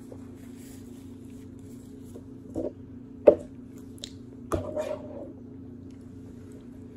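A metal spoon knocking and scraping in a bowl of oatmeal: a few sharp knocks, the loudest about three seconds in, then a short run of scraping knocks as it scoops, over a steady low hum.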